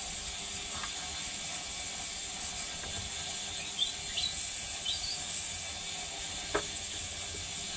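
Steady background hiss, with two faint clicks of a screwdriver working on a motorcycle fuel tap, one about a second in and one near the end.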